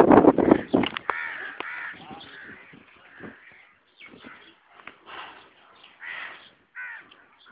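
A loud rough burst in the first second, then short harsh animal calls repeating about once a second.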